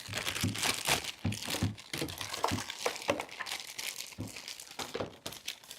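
Plastic packaging bag crinkling as it is handled and opened to take out magnetic animal tiles, an irregular run of crackles that stops suddenly at the end.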